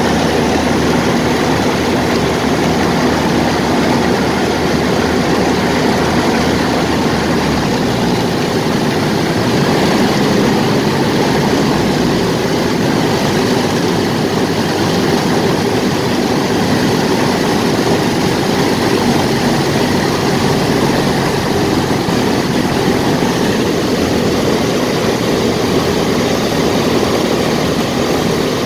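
An Ercoupe's piston engine and propeller run steadily on final approach and the landing rollout, heard from inside the cockpit. The engine note changes about eight seconds in.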